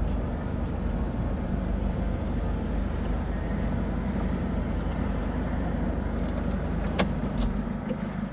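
Car running and slowing to a stop, a steady low rumble of engine and road noise that eases off near the end, with one sharp click about seven seconds in.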